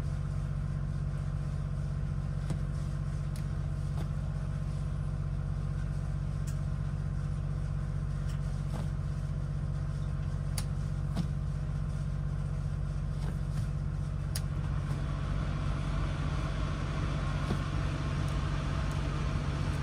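Kohler diesel generator running with a steady hum, with a few light clicks as the breaker toggles on the boat's distribution panel are switched on. A soft rushing noise joins the hum about fifteen seconds in.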